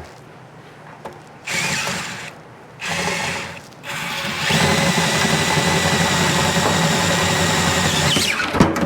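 DeWalt drill with an 11/16-inch bit boring the threads out of a nut: two short bursts, then a steady run of about four seconds that stops abruptly with a sharp knock near the end.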